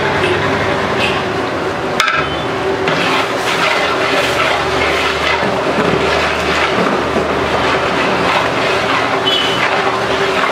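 Large aluminium pot of biryani masala cooking hard over a burner: a steady loud rumbling hiss of flame and boiling. A single sharp metal knock, like the ladle striking the pot, comes about two seconds in.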